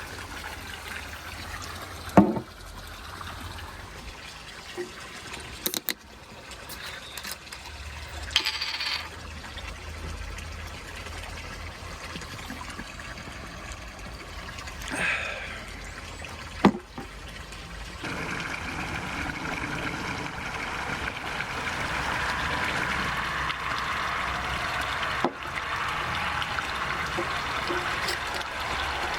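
A few sharp metallic clinks and knocks, the loudest about two seconds in, then from about two-thirds of the way through a steady sound of water running or pouring.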